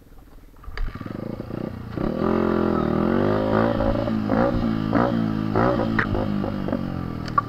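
Dirt bike engine picking up about a second in, then revving higher as the bike rides off along a rough trail, with knocks and rattles from the bike over the bumps.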